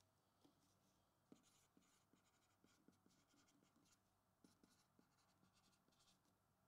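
Faint scratching of a pen writing by hand, in short strokes with small ticks.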